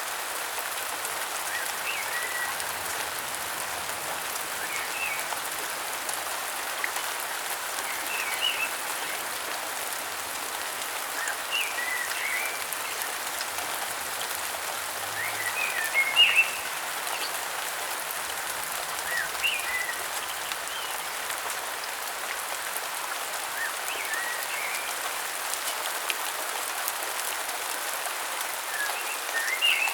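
Steady rain falling, with short bird chirps repeating every few seconds over it; the loudest chirps come about halfway through.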